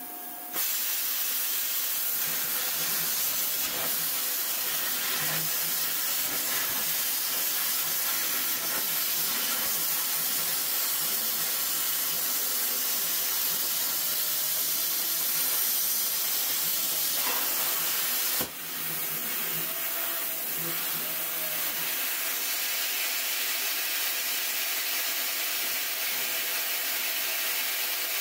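YesWelder CUT-55DS Pro plasma cutter torch on a CNC table cutting steel plate: a steady, loud hiss of compressed air and arc that starts about half a second in. It cuts out for a moment about two-thirds of the way through, then resumes.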